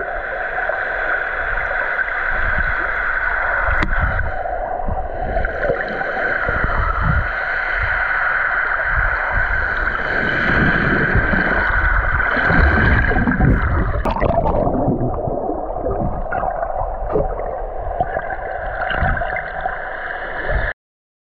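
Underwater sound picked up by a camera in a waterproof housing: a steady, muffled water noise with a constant hum and uneven low rumbles and gurgles as the camera moves through the water. It cuts off abruptly near the end.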